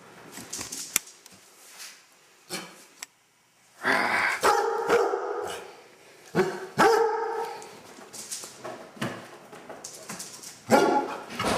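Basset hound barking in long, drawn-out barks: one about four seconds in that lasts over a second, another about six and a half seconds in, and a shorter one near the end, with a few knocks between.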